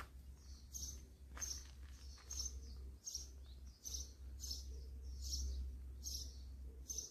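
A bird chirping over and over, a short high call about every two-thirds of a second, over a low steady rumble.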